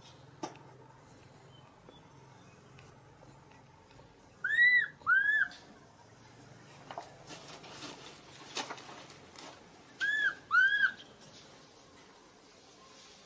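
Newborn macaque crying: high, whistle-like calls that rise and fall, given in two quick pairs, about four and a half and ten seconds in. Shorter, very high squeaks come about a second and eight seconds in.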